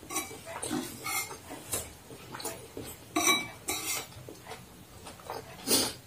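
Metal spoon and plastic fork clinking and scraping against a ceramic bowl while eating fried noodles, in a string of short strokes with chewing sounds between them. The louder clatters come a little past halfway and near the end.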